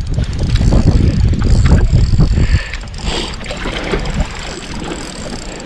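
Gusty wind buffeting the microphone with a heavy rumble that eases off about two and a half seconds in, leaving softer water and wind noise with scattered light clicks.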